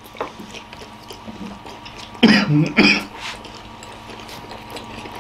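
Two short, muffled vocal bursts from a person with a whole big steamed momo dumpling crammed in the mouth, a little over two and about three seconds in, with faint chewing around them.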